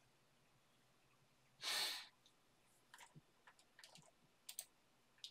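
A short breath out close to the microphone, like a sigh, about two seconds in, followed by a scatter of light clicks over the last couple of seconds.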